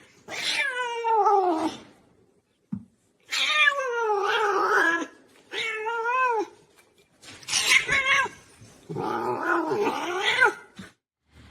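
A cat yowling in about five drawn-out, wavering calls with short pauses between them, the first sliding down in pitch.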